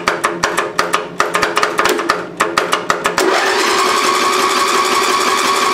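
Craftsman lawn tractor's 11 HP Briggs & Stratton engine being cranked by its electric starter, turning over with a regular beat of about five or six strokes a second. About three seconds in it catches and runs steadily. The owner takes the starting trouble for a failing starter solenoid.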